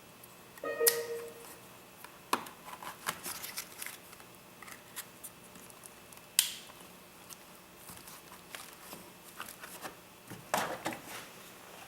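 Hands working a wiring harness into place: scattered clicks, taps and rustles, with a short squeak just under a second in and a sharper snap about six and a half seconds in.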